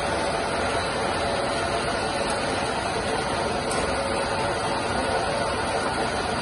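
SUPER OS480 open-end rotor spinning machine running in production: a steady, dense mechanical hum with a few faint steady tones in it.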